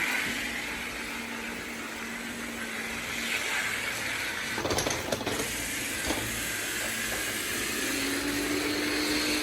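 Robot vacuum cleaner running: a steady whirring hiss with a faint low hum, which rises slightly in pitch near the end. A few brief knocks come about five seconds in.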